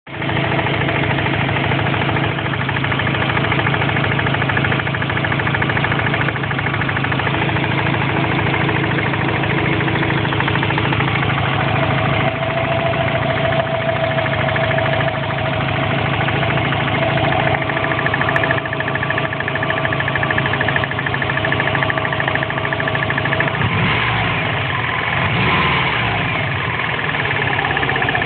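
Subaru Impreza flat-four boxer engine running steadily with a repetitive knock, with a brief change in engine speed near the end.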